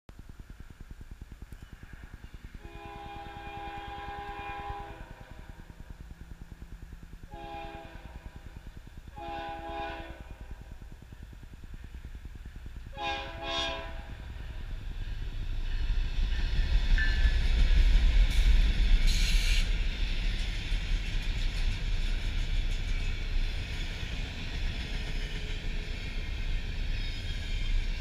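Locomotive horn of an approaching BNSF train, led by a GE ES44DC diesel, sounding four blasts, the first the longest and the last the shortest. Then the GE diesel locomotives pass close by with a loud low rumble, followed by the double-stack intermodal cars rolling on the rails, with a brief high squeal shortly after the locomotives arrive.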